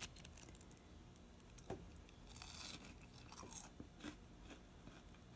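Mouth chewing a crunchy breaded fried chicken tenderloin, faint and close, with a burst of crisp crunching about two and a half seconds in and a few soft clicks of chewing around it.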